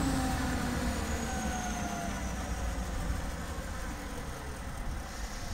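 Perkins-engined 500 kVA diesel generator set running down after shutdown: its hum slides down in pitch and fades.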